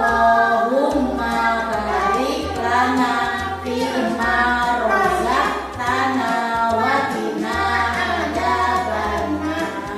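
A children's song: a high voice sings a melody over an instrumental backing track with a steady bass line.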